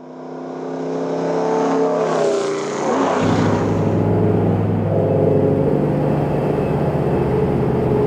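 A V8 truck engine swells in over the first few seconds with a rising rush of road and wind noise. From about three seconds in, the steady drone of the Ford 5.0 Coyote V8 is heard from inside the truck's cab as it cruises along.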